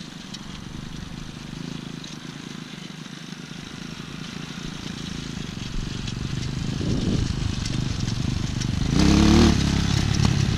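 A 200 cc dirt bike's engine running at a distance, growing steadily louder as it comes closer, then revving up with rising pitch about nine seconds in.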